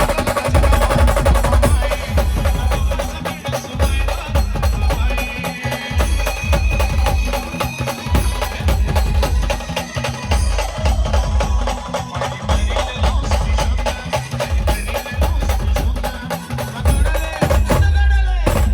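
Brass band playing an instrumental passage: a fast, dense drum rhythm with heavy bass beats under a sustained brass melody.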